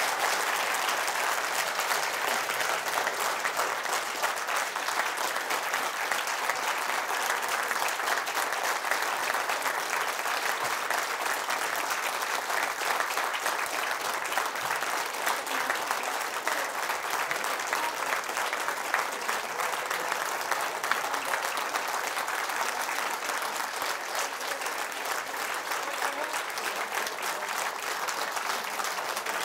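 Audience applauding: sustained clapping from many hands, easing a little near the end.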